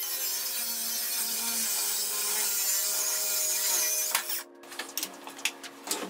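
Cordless angle grinder with a cutting disc cutting into a steel motor armature, a steady high-pitched grinding whine. About four seconds in the grinding stops, followed by a few sharp clicks and knocks.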